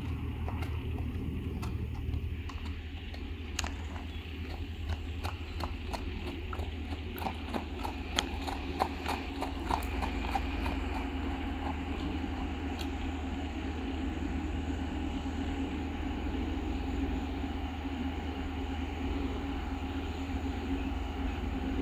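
Hooves of a trotting black stallion clip-clopping on a gravel lane, a quick even run of hoofbeats at about three a second in the middle. In the second half the hoofbeats fade and a steady mechanical drone takes over.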